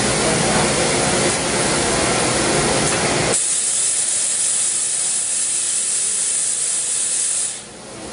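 High-speed CNC milling machine running, cutting hardened steel, with a steady machine noise and hum. About three seconds in, a loud high hiss starts abruptly and holds, then cuts off near the end.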